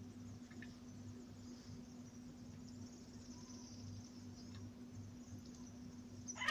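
Faint outdoor background of insects chirring steadily, over a low steady hum.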